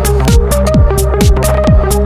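Instrumental passage of an electronic dance track: a kick drum about twice a second, crisp hi-hat strokes between the kicks, and a repeating synth melody.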